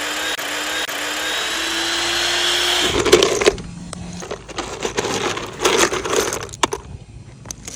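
A power tool running steadily for about three seconds with a slowly rising whine, then stopping. Irregular knocks and clatter of wood being handled follow.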